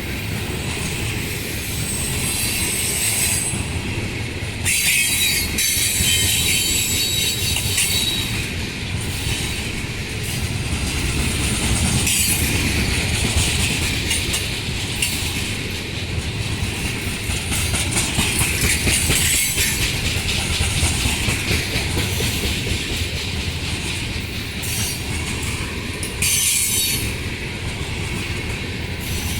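Cars of a heavy Ferromex chemical freight train rolling past, with a steady rumble, wheel-on-rail clatter and high steel wheel squeal. The sound swells louder about five seconds in and again near the end.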